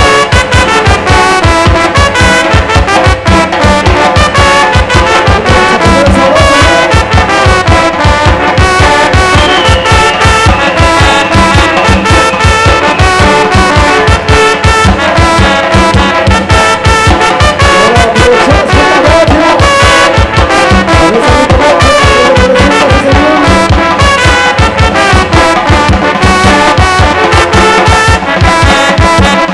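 Tamborazo brass band playing live: trumpets and trombones carry the tune over the steady, regular beat of the tambora bass drum.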